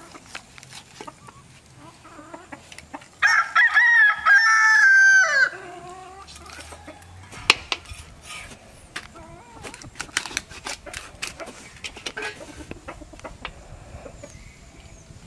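A rooster crowing once, about three seconds in: a loud call lasting just over two seconds that drops in pitch at the end. Scattered sharp clicks and knocks are heard before and after it.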